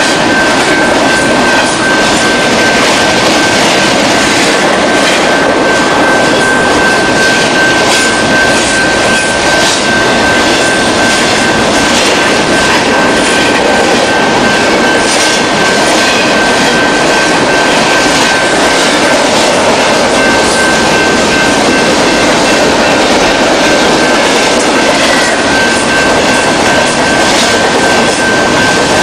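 Double-stack container freight train rolling past close by: a loud, steady rumble of steel wheels on rail, broken by many irregular clicks and clanks. A thin, steady high-pitched tone rides above it.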